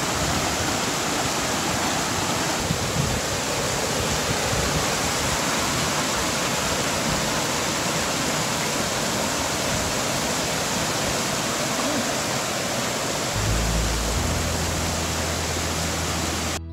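Mountain stream rushing and splashing over rocks in small cascades, a steady, even rush of water.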